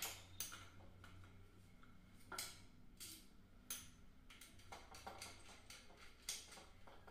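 Faint, irregular clicks and taps, about six, of a screwdriver and small screws against the plastic body of a contactor as its contact screws are fitted and tightened.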